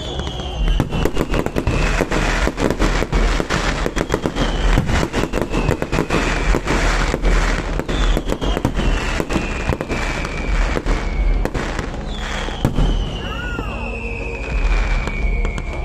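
Fireworks display: a dense, rapid run of bangs and crackling shell bursts, thinning out after about twelve seconds. Over it, a high tone slides down in pitch, starting again every four seconds or so.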